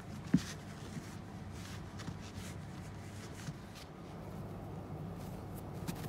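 Soft rustling and scratching of a pet otter tussling with a person's hand on a woven mat, with one sharp tap about a third of a second in. The otter makes no calls while it plays.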